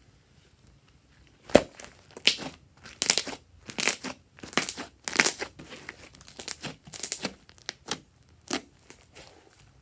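Fluffy slime being squeezed and pressed by hand, making a run of short squelches that starts about a second and a half in with its loudest one and thins out near the end.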